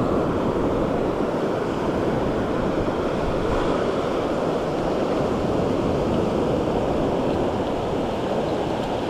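Ocean surf washing in a steady rush around the shallows, with wind on the microphone.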